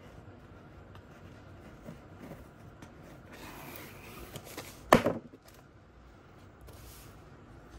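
Hands handling a rigid cardboard gift box, with soft rustling as its lid is lifted, then one sharp knock about five seconds in as the lid swings open and hits.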